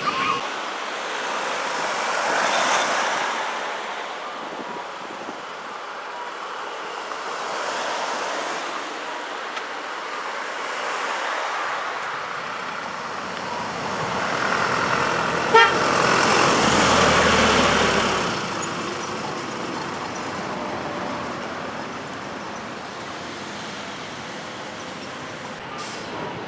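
Decorated trucks driving past one after another, their engine and tyre noise swelling and fading with each truck, the loudest pass about 14 to 18 seconds in. Horn toots sound among them.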